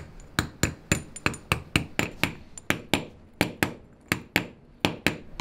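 Steel ball-peen hammer striking a welded steel bearing housing in a run of sharp metal-on-metal taps, about three a second, each with a short ring: driving press-fit bearings and a collar into the housing.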